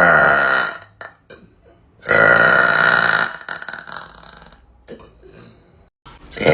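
A woman burping loudly three times: one burp trailing off under a second in, a longer one about two seconds in that lasts over a second, and a third starting near the end. A few faint clicks fall between the first two.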